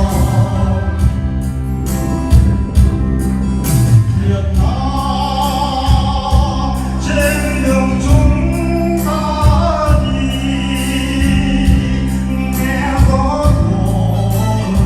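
An amateur choir singing a song over instrumental accompaniment with a steady beat.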